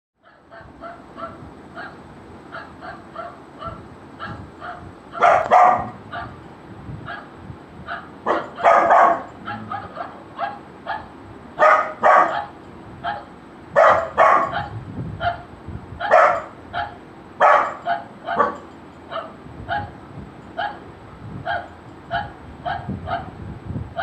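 A recording of dog barking plays as a steady run of short barks, two or three a second. Over it a golden retriever puppy answers with louder barks, several of them between about five and eighteen seconds in.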